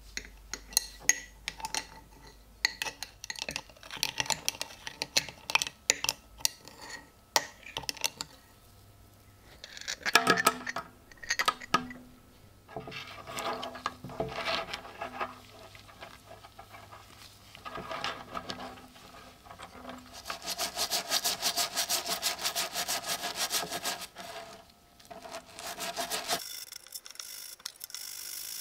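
Old coins being cleaned in a white cleaning solution: scattered clicks and scrapes as a glass rod stirs them in a jar, then about halfway through a few seconds of fast, even brush scrubbing. No voice.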